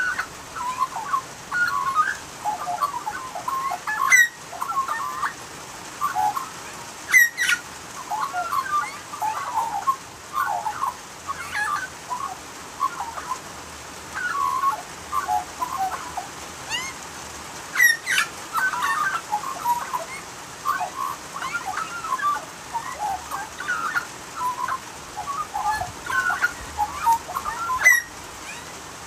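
Australian magpies singing: a continuous run of quick, varied warbled notes, with a few louder, sharp notes about four, seven, eighteen and twenty-eight seconds in.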